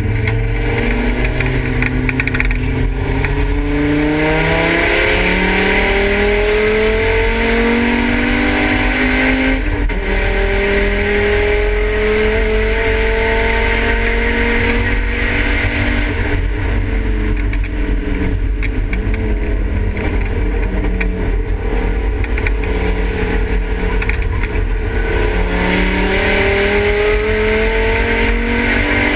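Volvo 850 race car's five-cylinder engine heard from inside the stripped cabin, pulling hard with its pitch climbing steadily. The pitch breaks about ten seconds in, sits lower through the middle, and climbs again near the end, over steady road and wind noise.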